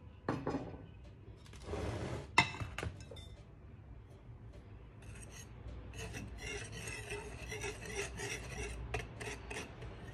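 Wire whisk stirring dry flour in a bowl, a continuous scratchy rasping from about five seconds in. It is preceded by a few light knocks and one sharp clink a couple of seconds in.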